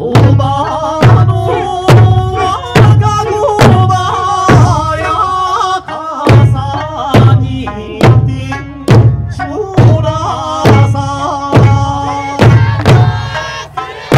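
Eisa ōdaiko, large Okinawan barrel drums, struck together by a troupe in a steady beat of a little more than one deep stroke a second. Between the strokes runs the folk-song accompaniment, a pitched melody line with a voice.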